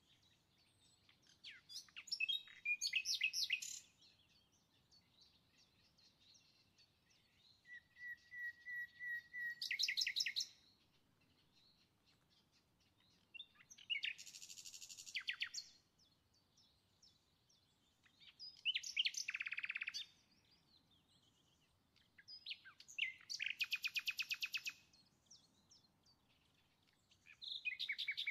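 A songbird singing: about six short phrases of rapid, high trilled notes, each a second or two long, repeated every four to five seconds with quiet in between.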